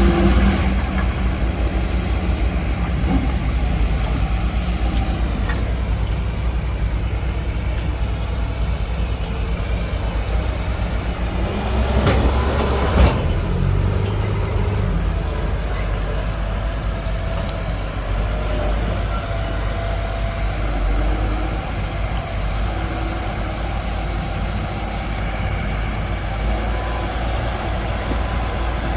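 Heavy diesel machinery engines running steadily under load, with a short hiss and a sharp knock about halfway through.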